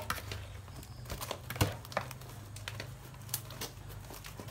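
Irregular light clicks and snaps of hands breaking and splitting plant material, the sharpest about one and a half seconds in, over a low steady hum.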